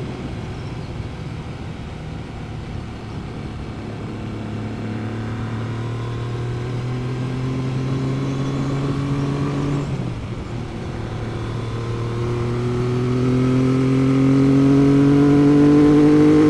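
Triumph 900 three-cylinder engine through a Motad Venom 3-into-1 exhaust with the baffle removed, heard from the rider's seat while accelerating: the revs climb steadily, drop sharply with a gear change about ten seconds in, then climb again and get louder towards the end.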